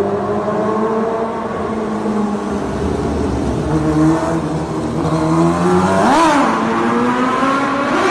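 Kawasaki Ninja H2R's supercharged inline-four engine running at speed, its pitch dropping and stepping up again as it changes gear, with a quick sharp rev rising and falling about six seconds in.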